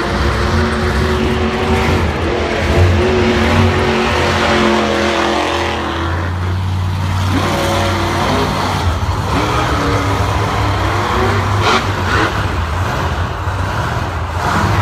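Monster truck supercharged V8 engines running loudly, their pitch rising and falling as they are revved.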